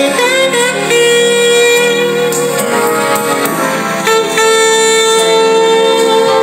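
Smooth-jazz saxophone music playing from a cassette tape through a Marantz PM326 boombox's speakers, in a playback test of the repaired tape deck. Long, steady held notes.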